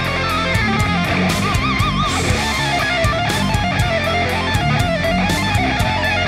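Background rock music with electric guitar and a steady drum beat; a lead guitar note with wide vibrato about one and a half seconds in.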